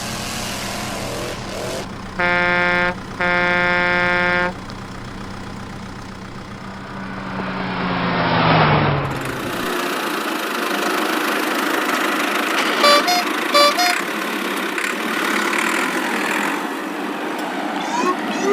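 Cartoon vehicle sound effects: an engine humming steadily, two horn honks a couple of seconds in (the second longer), then the engine note falling away and stopping about nine seconds in. A steady rushing noise follows, with a couple of short beeps.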